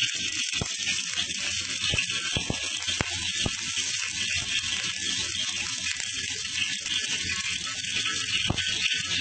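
Hot cooking oil sizzling in a steel wok: a steady hiss with scattered sharp crackles and pops. The oil is smoking hot.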